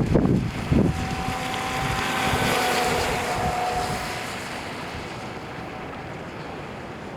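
Wind buffeting the microphone for the first second. Then a modified Rio EP electric RC boat runs past: the high whine of its 2600 kV brushless motor and the hiss of water swell, peak two to three seconds in, and fade away.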